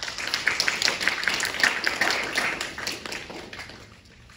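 Audience applause, many hands clapping, dying away near the end.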